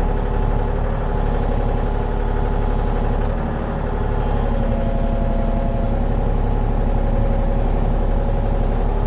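Diesel engine of a small earthmoving machine running steadily, with its tones shifting slightly about four seconds in.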